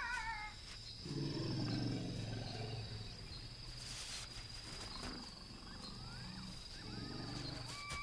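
A deep, low animal rumble from about one to three seconds in, with a fainter one later, over a steady high insect drone; short bird-like calls and a wavering whistle come in near the end.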